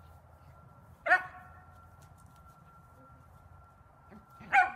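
A small dog barking twice, single short barks about three and a half seconds apart.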